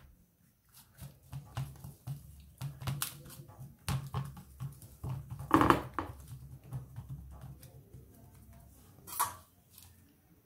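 Soft handling sounds of pizza dough being pressed by hand into a round metal baking pan: small scattered knocks and scrapes of the pan, with one short louder sound about halfway through.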